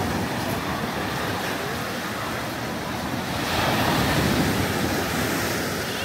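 Small sea waves breaking and washing up a sandy beach, swelling louder about three and a half seconds in as one wave comes in, then easing off.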